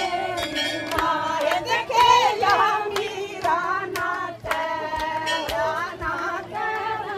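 Group of women singing a Hindi devotional bhajan together, accompanied by hand claps in a steady beat, roughly two claps a second.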